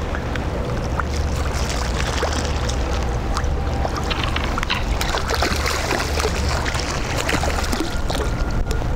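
Strong wind buffeting the microphone as a steady low rumble, with many small, irregular clicks and rattles over it.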